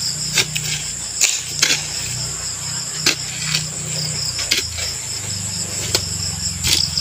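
A long iron digging bar jabbed down into the soil at the bottom of a hole, a sharp strike roughly every second, irregularly spaced, over the steady high chirring of crickets.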